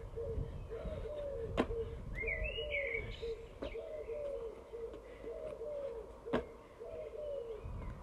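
A dove cooing over and over in short low phrases, with a small bird chirping briefly about two seconds in. Three sharp taps cut through, the loudest about a second and a half in.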